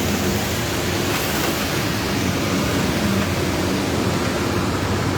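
Steady, dense hiss of a hailstorm downpour, hail and rain falling, with no separate impacts standing out.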